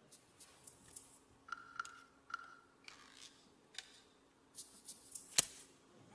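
Stage-prop katana clicking and scraping against its scabbard as the blade is worked in and out, catching where it won't go back in, with one sharp click about five and a half seconds in.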